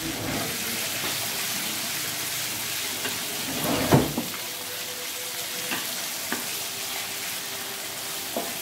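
Potatoes, chicken gizzards and liver sizzling in spice paste in a wok while a wooden spatula stirs and scrapes them, with one louder knock about four seconds in.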